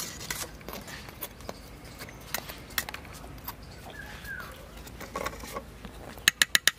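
Steel spoon clinking against a steel bowl as syrup is spooned over fried sweets, ending in a quick run of five or six sharp taps on the bowl. A bird calls briefly in the background.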